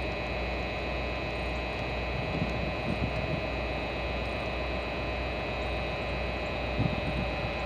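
NJ Transit GE PL42AC diesel locomotive standing and idling, a steady hum with several constant whining tones over a low drone. A few soft low thumps come about two to three seconds in and again near the end.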